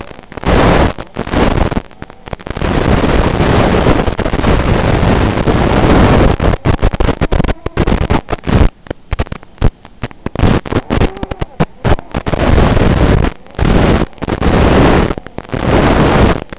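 Loud hiss and crackle of static from an analog FPV video receiver's audio channel, cutting in and out in bursts as the drone's video signal breaks up.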